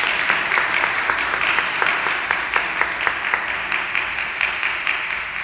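Audience applauding, with a few sharp claps close by standing out, slowly dying down toward the end.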